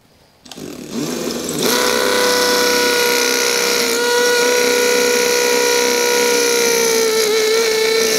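Makita XPH14 18V brushless hammer drill in hammer mode on speed 2, boring into fully cured concrete with a multi-purpose bit. It spins up over about a second, then runs at a steady, even pitch while the bit sinks into the concrete.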